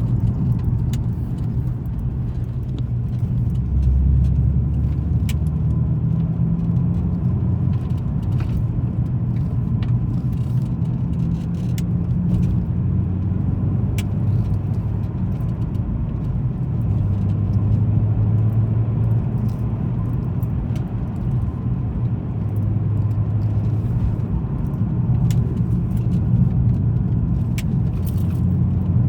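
A car driving on the road: steady engine and tyre rumble, with the engine note stepping up and down in pitch several times. Scattered sharp ticks throughout.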